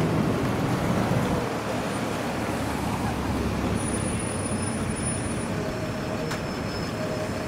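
Steady street traffic noise with a tram rolling slowly along street track, a little louder in the first second or so, and a single sharp click about six seconds in.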